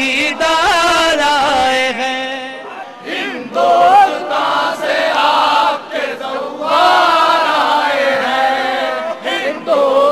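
Men chanting a devotional lament in long, wavering sung phrases, broken by short pauses for breath.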